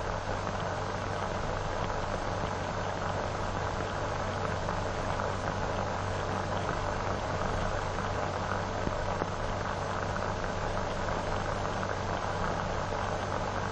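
Steady hiss and hum of an old optical film soundtrack, even and unchanging, with no other sound.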